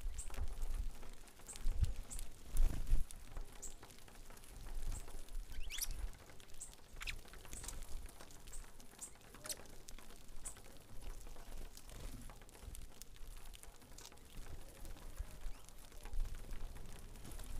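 A flock of saffron finches at a seed feeder: a steady pattering of pecking and shuffling in the seed, with scattered short high chips and calls. One longer call falls in pitch about six seconds in, and a couple of low thumps come about two and three seconds in.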